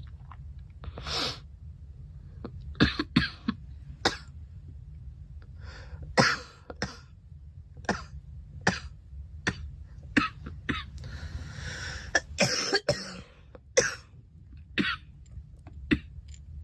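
A girl coughing over and over: short, sharp coughs, some in quick pairs, with one longer, drawn-out cough a little past the middle.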